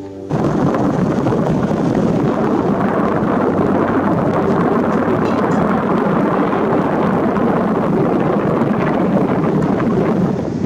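Wind buffeting the microphone outdoors: a loud, steady rushing rumble with no pitch, starting abruptly a moment in.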